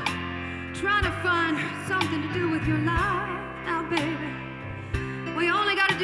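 Female vocalist singing a blues-rock song over a live backing band, in a softer passage that swells again near the end with loud, sustained vibrato notes.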